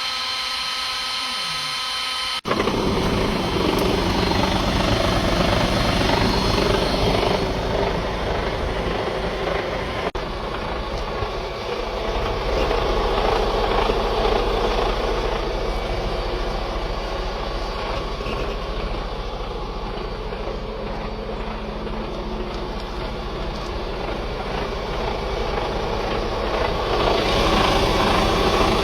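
A steady multi-pitched tone for about two seconds, then a Mercedes-Benz Actros MP4 truck's diesel engine turns over on the starter without catching, a continuous rhythmic mechanical churn with a low rumble that goes on for the rest of the time.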